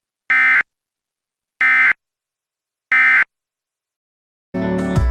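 Three short bursts of Emergency Alert System (SAME) end-of-message data tones, each a fraction of a second of rapid two-tone digital warbling, about a second and a third apart, signalling the end of the alert. Music begins near the end.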